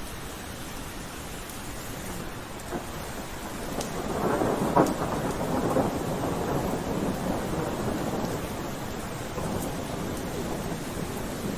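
Steady rain falling, with a roll of thunder that swells about four seconds in, peaks a second later and slowly dies away.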